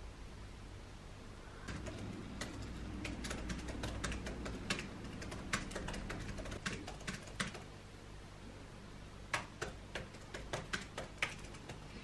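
Irregular light clicks and taps in two runs, the second sharper, over a low steady hum.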